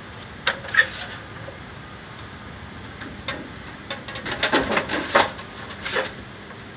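Thin aluminum siding sheet clattering and knocking against the metal jaws of a siding brake as it is shifted and repositioned: a few separate sharp clicks, then a quick cluster of them around four to five seconds in, and one more near six seconds.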